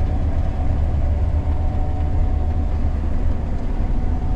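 Gleaner combine running steadily while harvesting soybeans, heard from inside the cab: an even low drone with no change.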